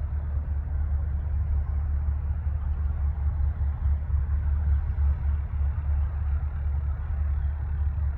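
Twin Williams FJ44 turbofans of a Cessna Citation CJ4 business jet running, a steady low rumble with no clear whine.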